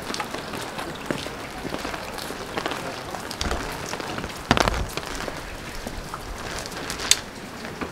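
Steady rain falling, with many small drops tapping close by. A louder knock comes about four and a half seconds in and a sharper one near seven seconds.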